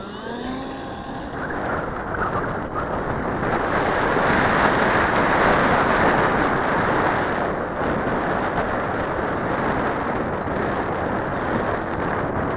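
Wind buffeting the microphone of a camera mounted on the wing of an RC Apprentice S trainer plane. About the first second, the plane's electric motor whines up in pitch as the throttle opens for takeoff. Then loud wind rush takes over, peaking around the middle as the plane flies.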